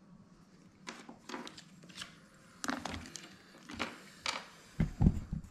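Small plastic parts and a mic cable being handled: irregular clicks and knocks against a wooden tabletop, with a few heavier low thumps near the end.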